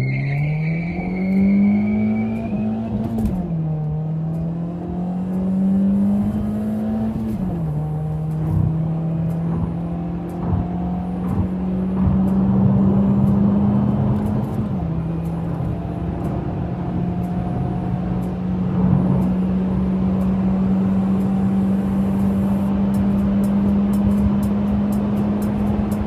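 Honda Civic FB7 four-cylinder engine, running on LPG through an aftermarket exhaust, heard from inside the cabin as the car pulls hard away from a stop. The revs climb through the gears with three upshifts, about 3, 7 and 15 seconds in, then hold steady as it cruises. A high squeal sounds over the first couple of seconds.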